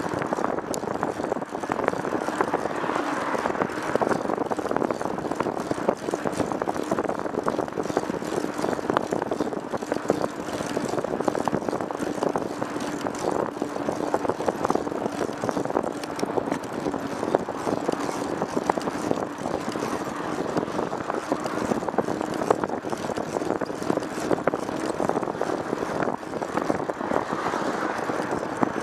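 A vehicle in motion: steady engine drone with road and wind noise, holding an even level throughout, with a steady low hum and scattered small crackles.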